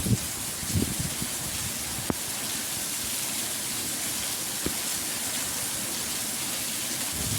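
Heavy rain falling steadily in a storm, a constant hiss, with a few low rumbles in the first second and a couple of sharp drip ticks.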